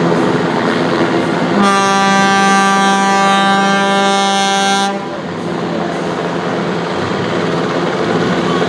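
A ship's horn sounds one long blast of about three seconds, beginning a second and a half in and stopping abruptly. Under it and after it runs the steady noise of a hovering helicopter's rotor and engines.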